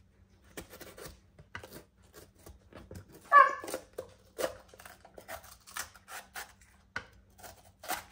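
Chef's knife slicing through a raw bell pepper on a plastic cutting board: irregular crisp crunching cuts through the flesh. A brief pitched sound about three seconds in is the loudest moment.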